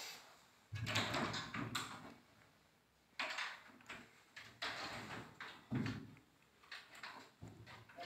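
Hinged wooden wardrobe doors being pulled open and pushed shut several times, a series of knocks and bumps with short rustling noise in between.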